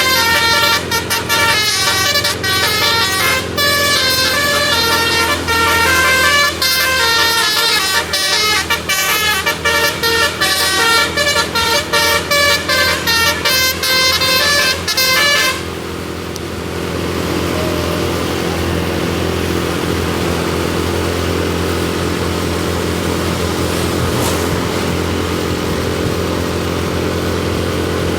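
A tour bus's telolet basuri musical air horn plays a fast, many-noted tune that stops abruptly about 15 seconds in. After that comes the steady sound of vehicle engine and road noise.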